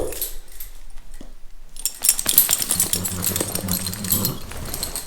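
Electric horse clippers buzzing with a low steady hum while the blades crackle through the coat, louder from about two seconds in.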